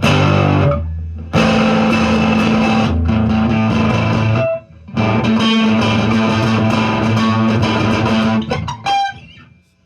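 Overdriven electric guitar on its neck pickup, gain turned up, playing chords with no delay: a short chord at the start, two long ringing chords, and a brief stab near the end before it dies away.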